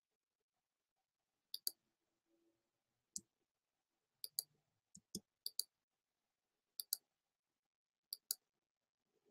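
Computer mouse button clicking, sharp single and paired clicks about seven times over several seconds, with quiet between them.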